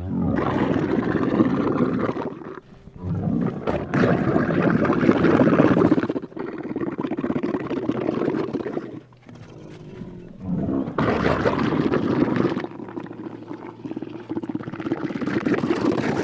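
Camel making its wet, gargling call: a run of long rough calls, about five, each two to three seconds long with short breaks between.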